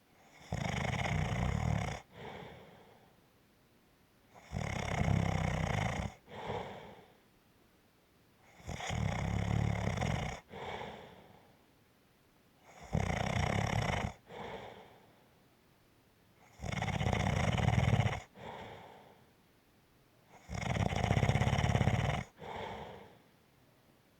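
Steady, regular snoring: six loud snores about every four seconds, each followed by a shorter, fainter breath.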